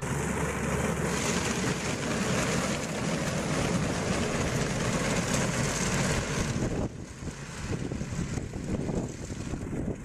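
Four-track snowcat running along a packed-snow road: steady engine and track noise as it passes close, dropping noticeably about seven seconds in as it moves away.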